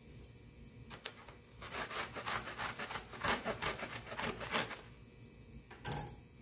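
Kitchen knife sawing through a roll of paper towels in quick back-and-forth strokes for about three seconds, then a short, louder rustle of paper near the end.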